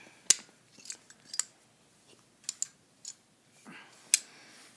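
Ozark Trail folding multi-tool clicking sharply as its blades and tools are worked open, about six separate metal clicks at irregular intervals, with a brief rustle near the end.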